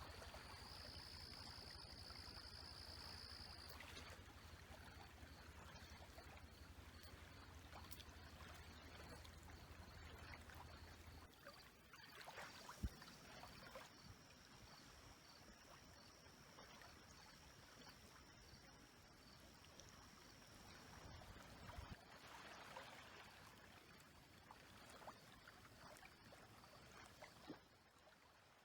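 Faint small lake waves lapping and splashing, swelling and easing a few times, with a low hum in the first part and a faint steady high-pitched tone above.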